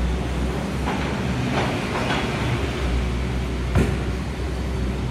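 Doosan 220LC-6 hydraulic excavator's diesel engine running steadily under load while its bucket digs wet soil, with scraping and one sharp clank about four seconds in.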